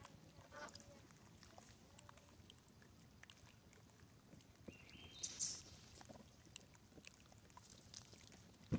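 Near silence: quiet outdoor ambience with faint scattered ticks, a brief soft hiss about five seconds in, and one sharp click near the end.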